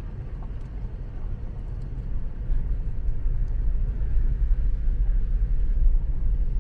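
Car driving slowly on a gravel road, heard from inside the cabin: a steady low rumble of tyres and engine that gets a little louder about two and a half seconds in.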